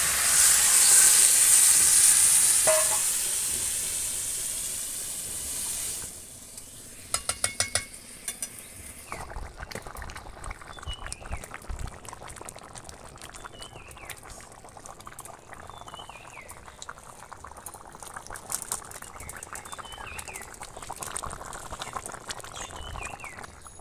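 Water poured into a hot kadai of fried masala, jackfruit, potato and prawns hisses and sizzles loudly, dying down after about six seconds. Then comes a quick run of clicks, and the curry crackles and bubbles quietly as it comes to the boil.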